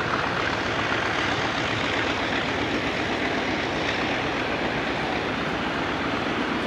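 Freight train of tank wagons rolling past, a steady noise of wheels on rails.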